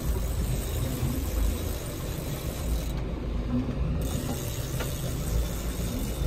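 Steady low rumble and hiss of wind and sea around a small boat, with the mechanical whir of a large spinning reel being cranked as a hooked fish is played.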